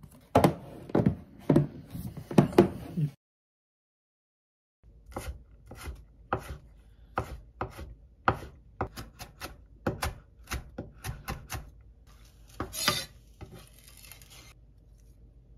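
Kitchen knife dicing carrot on a wooden cutting board, sharp chops at about two to three a second, then the blade scraped across the board near the end. Before the chopping, a few loud knocks and clatters, then a brief silence.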